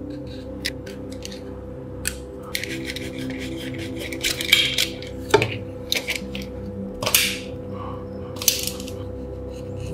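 Small metal parts being handled, giving sharp light clicks and clinks with a few louder scrapes in the middle, over background music with steady held notes.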